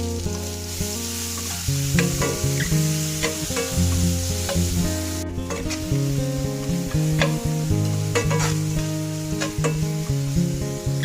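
Food sizzling in a frying pan while it is stirred, the utensil clicking against the pan now and then, over background music.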